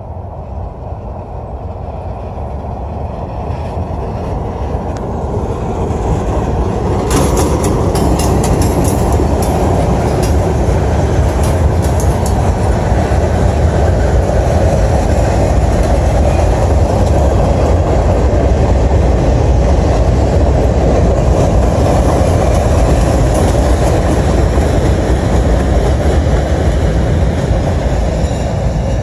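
Freight train of boxcars and flatcars rolling past close by. The rumble builds over the first several seconds and then holds steady, with a run of sharp clicks from the passing cars' wheels about seven to twelve seconds in.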